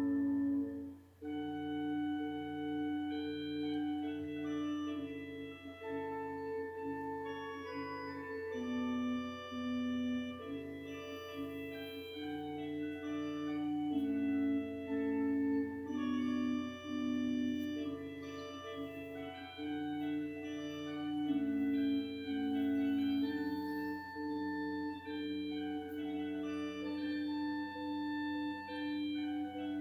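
Background music: slow, sustained keyboard chords with a melody of held notes changing about once a second, over a steady low drone, with a brief dip about a second in.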